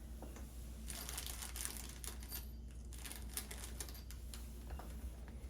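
Hands handling deadbolt lock parts at the door: small irregular metal clicks and rattles with some rustling, busiest about a second in and again around three seconds in.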